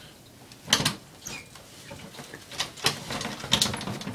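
A few sharp knocks and clicks of a door being handled and footsteps as a person goes out through it, the loudest about a second in and a cluster near the end.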